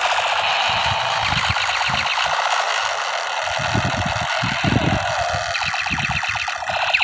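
Battery-powered toy M16 rifle's electronic firing sound effect, a steady rapid machine-gun rattle held down for several seconds. Irregular low thumps join it from about halfway through.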